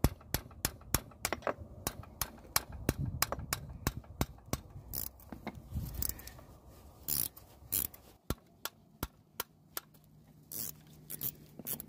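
Hand tools working on the transfer case's mounting hardware: a run of sharp metallic clicks, about three or four a second at first and then more irregular, with a few duller knocks.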